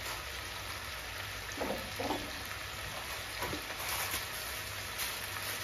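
Beef and peppers sizzling softly in a pot on the stove, an even frying hiss with a low steady hum beneath. A few faint short knocks and rustles of handling come through, the last about four seconds in.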